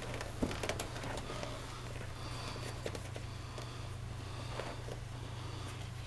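Metal buckles on Servus rubber overshoes clicking and clinking, with rubber rubbing, as a hand works the buckles; a few scattered clicks over a steady low hum.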